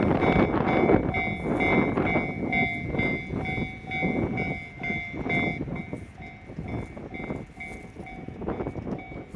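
A 683 series and 681 series electric limited-express train passing at speed, its wheels clattering rhythmically over the rail joints. The rush is loudest at first and fades over the last few seconds. A level-crossing warning bell rings repeatedly through it, about twice a second.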